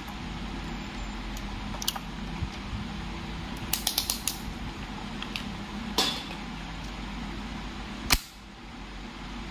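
Clicks and snaps from the exposed mechanism of an opened moulded case circuit breaker being worked by hand: a quick run of small clicks about four seconds in, then single sharper snaps around six seconds and near the end, over steady background noise.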